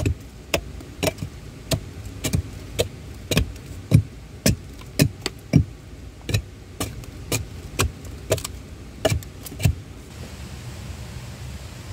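A hand tool striking wood again and again, about two sharp blows a second and uneven in force, like chopping or hammering, stopping about ten seconds in.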